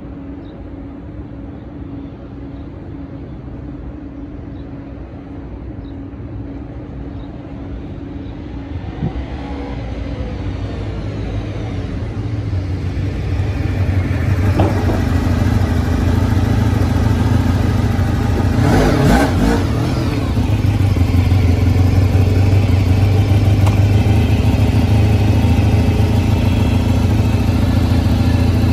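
Honda RC30 (VFR750R) 748 cc V4 engine, faint at first, growing louder as the motorcycle rides up and pulls in close, then idling steadily right beside its exhaust for the second half.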